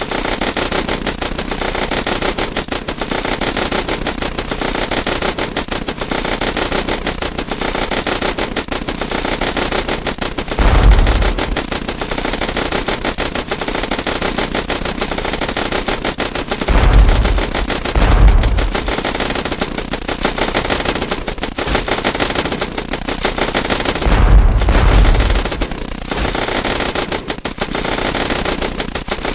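Sound effects of automatic submachine-gun fire: rapid, unbroken bursts of shots. Deep booms break through four times, at about 11 s, twice around 17–18 s, and in a longer one near 24 s.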